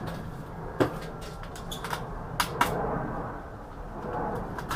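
Clicks and knocks of computer parts being handled while an all-in-one PC is taken apart. There is a sharp knock about a second in, two more close together near the middle, and lighter clicks between them.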